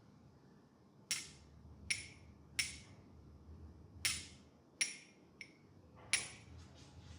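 A series of seven sharp, ringing slaps of a masseur's hands, spaced irregularly about a second apart, the sixth one faint.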